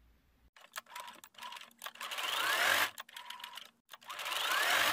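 Electric sewing machine stitching a seam in short runs: ticking stitch by stitch, then twice speeding up into a faster run with a rising whine, about two seconds in and again near the end.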